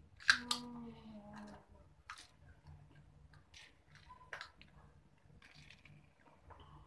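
A short vocal sound just after the start, then a few sharp clicks and faint scattered small handling noises.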